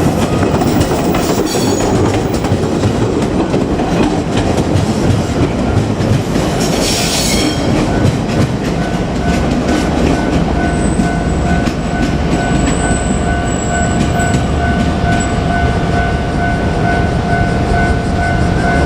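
A JR Kyushu 817 series electric train runs through a level crossing, its wheels clattering over the rail joints. From about nine seconds in, the crossing's warning bell can be heard as a steady, pulsing two-tone ring over the train's rumble.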